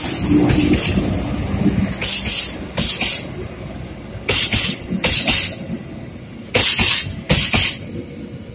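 Passenger train coaches rolling past slowly, their wheels clattering over a rail joint in pairs, one pair about every two seconds as each coach's two bogies cross it.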